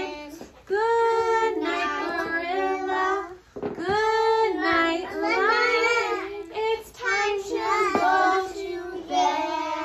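Young children singing together in high voices, in drawn-out sing-song phrases with short breaks between them.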